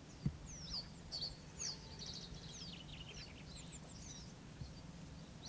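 Small songbirds singing, a busy run of short, high, quick sweeping chirps over a steady low hum, with one brief low thump near the start.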